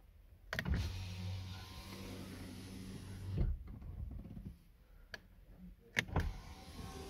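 BMW E60 electric window motor running the glass for about three seconds after a switch click, stopping with a thump as the glass hits its end stop, during a window reset that teaches the regulator its end positions. Sharp switch clicks follow near the end.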